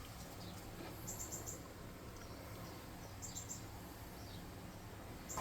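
Faint cricket chirping: short trains of three or four quick high pulses about every two seconds, over a low steady hum.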